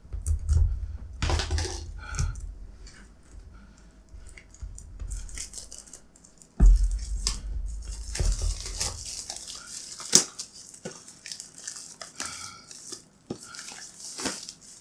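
A product box being handled and opened by hand: packaging rustling and tearing, with scattered clicks and knocks. Deep handling thumps come at the start and about six and a half seconds in.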